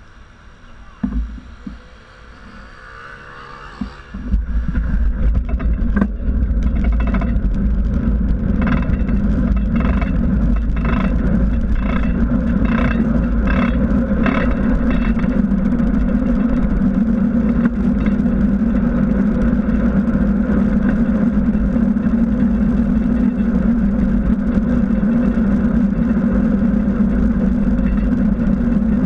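Wind and road rumble on a bicycle-mounted action camera while riding: fairly quiet with a few knocks at first, then about four seconds in a loud, steady, low rumble takes over. From about seven to fourteen seconds in, a run of regular pulses repeats about one and a half times a second over the rumble.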